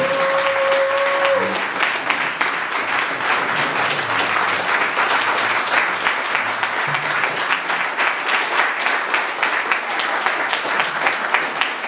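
A roomful of people applauding with steady, dense clapping. One held high note sounds over it for about the first second and a half.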